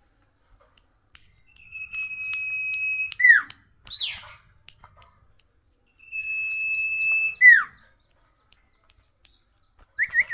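Sirtu bird singing: two long, level whistles, each held about a second and a half and ending in a quick downward slur, with a short falling note between them and a few quick rising chirps near the end.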